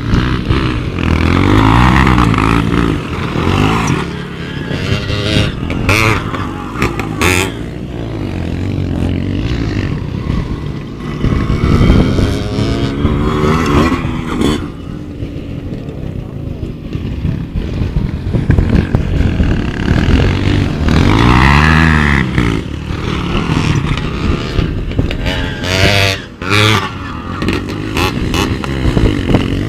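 Motorcycle engine revving up and easing off again and again, its pitch climbing and falling several times.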